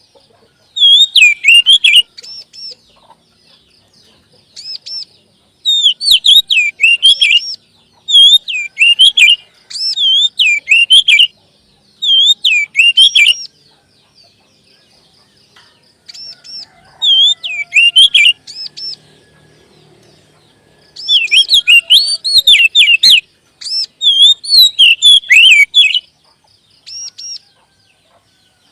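Songbird singing loud phrases of quick, hooked chirps, each phrase lasting one to three seconds, with short pauses between them.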